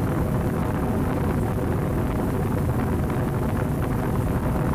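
Roxy table fan running at speed, a steady whir of its motor and blades with the fan's air buffeting the microphone. The jammed motor has been freed and the shaft now turns freely.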